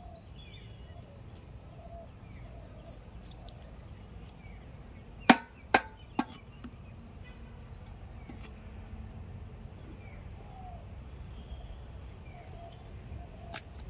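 Knife chopping Indian mackerel against a wooden stump chopping block: three sharp chops about half a second apart a little before the middle, with fainter knife taps scattered around them.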